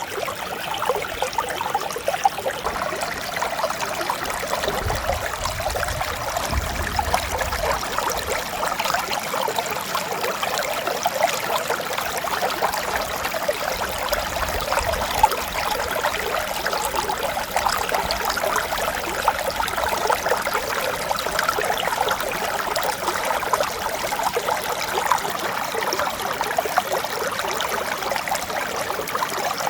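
Mountain stream flowing steadily over rocks, an even babbling and trickling of clear running water.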